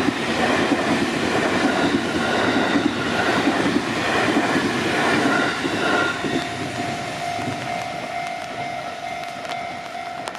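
An electric train on the JR Chūō Line passing over a level crossing, its wheels clattering on the rail joints. The rumble fades after about six seconds, leaving the crossing's warning alarm ringing as a steady tone.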